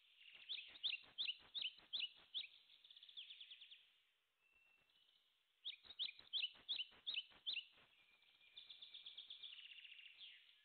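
A songbird singing: a phrase of about seven sharp, falling chirps followed by a rapid trill, given twice.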